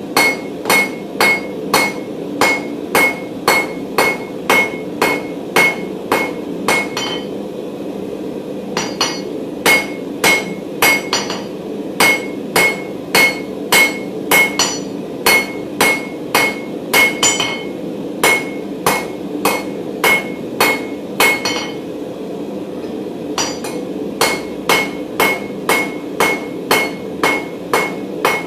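Steady hammer blows forging a 16 mm round mild steel bar on an anvil, about two to three a second, each strike ringing, with two short pauses in the rhythm. A steady low rumble runs underneath.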